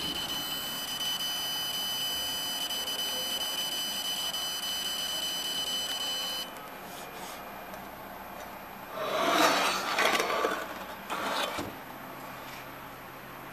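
PHILICAM CNC laser engraving machine working on black stone, giving a steady high-pitched whine with several overtones that cuts off suddenly about six seconds in. Then come two loud, rough bursts of noise.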